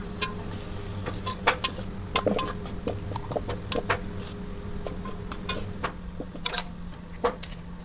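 Steel spoon scraping and knocking against a metal cooking pot in irregular clicks while mashed boiled potatoes are stirred into the tempered oil.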